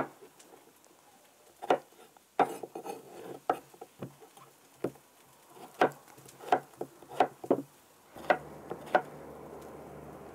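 Knife chopping zucchini into small pieces on a wooden cutting board: irregular sharp knocks, roughly one or two a second. A low steady hum joins about eight seconds in.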